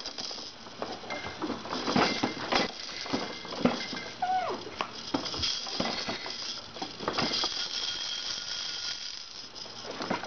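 Irregular clicking, knocking and rattling of plastic toys on a baby activity center as they are grabbed and shaken, with one short high voice sound about four seconds in.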